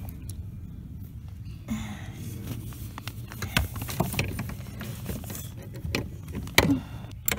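Scattered metallic clicks, clinks and knocks of hand tools and metal parts being handled at a truck's clutch pedal assembly, over a low steady hum.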